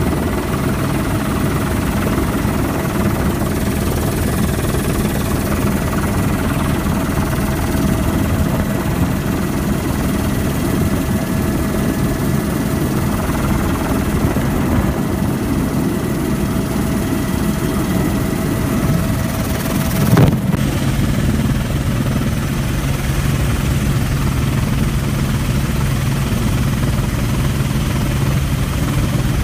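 Helicopter in flight heard from inside the cabin: a steady, loud rotor and engine rumble with steady tones in it. A brief knock about two-thirds of the way through, after which the low tone is stronger.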